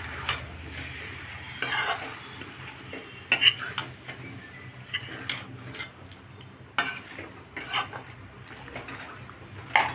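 Metal spoon stirring chicken curry pieces in a steel kadai, with irregular scrapes and clinks against the pan, over a light sizzle of the chicken frying in oil and onions.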